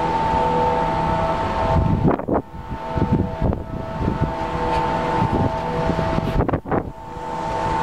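Wind buffeting the microphone in uneven gusts on an open ship deck, over a steady machine hum made of several even tones.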